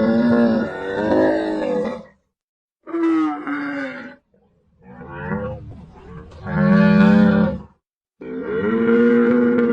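A large animal's loud, drawn-out pitched calls, four of them in a row with short silences between.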